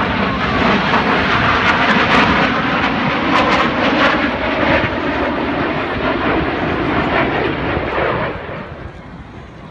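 An airplane's engine noise as it flies by, loud and rough, dropping away sharply about eight seconds in.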